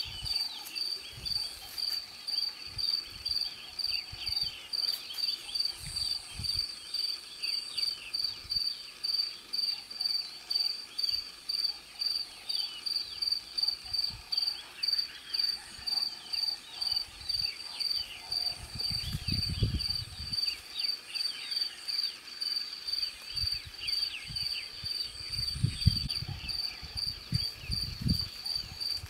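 A cricket chirping steadily, a high-pitched pulse about twice a second, over fainter scattered high chirps. A few low rumbles come in about two-thirds of the way through and again near the end.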